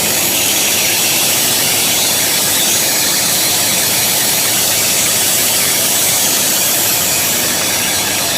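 A loud, steady mechanical hiss, bright and even, with no rhythm or clear pitch.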